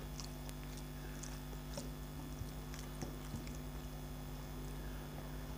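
Quiet eating by hand: fingers mixing rice on a steel plate and soft chewing, with scattered small clicks, over a steady low hum.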